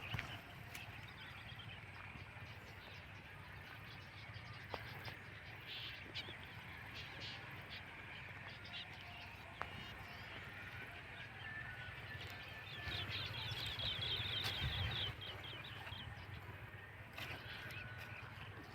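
Quiet outdoor ambience: faint bird chirps over a low steady hum, with a quick run of high chirps about two-thirds of the way through.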